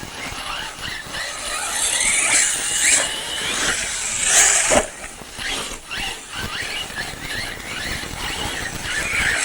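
Electric RC buggy's brushless motor whining, its pitch rising and falling again and again with the throttle, with bursts of hiss from dirt under the tyres and a sharp knock about five seconds in.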